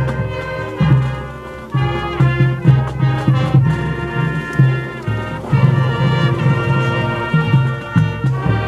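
High school marching band playing its competition field show: a brass-led ensemble with short low bass notes repeating underneath sustained chords.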